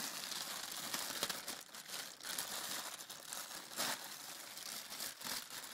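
Packing material being handled during unboxing: a continuous crinkling rustle, with a few sharper crackles, the loudest near the end.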